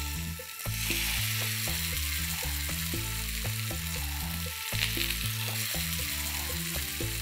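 Skewered chicken tikka pieces frying in hot oil in a pan: a steady sizzle that swells briefly about a second in and again a little past the middle.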